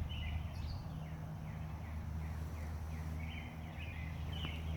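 Birds chirping, short repeated high notes in two bursts, near the start and again after about three seconds, over a steady low hum.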